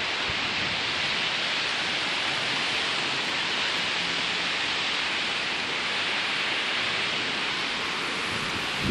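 Strong wind rushing through tree foliage, a steady hiss of rustling leaves without distinct gusts.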